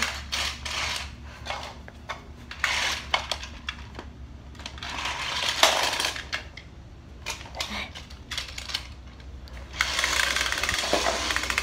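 Rustling and small knocks and clinks from handling, coming in short bursts with quieter gaps, over a faint steady low hum.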